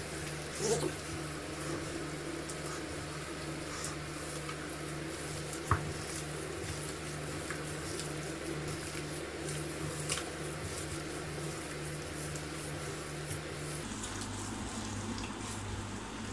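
Boiled potatoes squeezed and mashed by hand in a bowl: soft, faint squishing with small scattered clicks, over a steady low hum that drops in pitch about fourteen seconds in.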